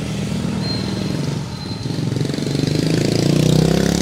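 A motorbike engine running close by, growing louder and rising in pitch toward the end as it passes.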